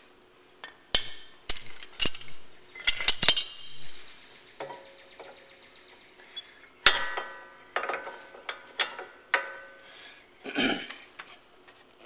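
Steel-backed brake pads and the caliper's metal hardware on a Porsche 911 rear brake caliper clinking and scraping by hand as the old pads are pulled out and the new pads slid in. The sound is a string of sharp metallic clinks, some ringing briefly, with the loudest about seven seconds in.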